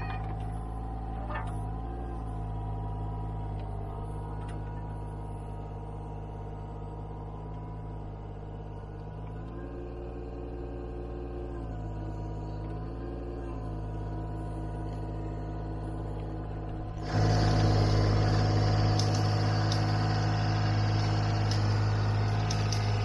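A motor running steadily with a pitched hum. It dips in pitch briefly twice, then about seventeen seconds in it suddenly gets louder and harsher and stays that way.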